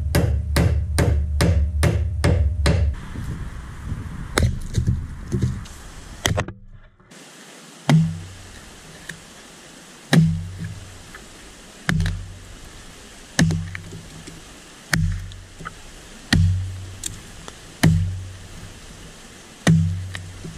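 A four-pound Evansville axe chopping into a small standing tree: eight single heavy blows into the wood, about one every one and a half to two seconds, starting about eight seconds in. Before that, a fast even run of knocks over a steady low tone fades out.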